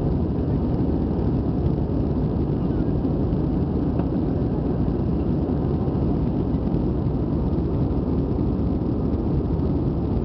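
Airbus A320 cabin noise heard from a window seat over the wing: a steady, even roar of the jet engines and airflow as the airliner climbs after takeoff.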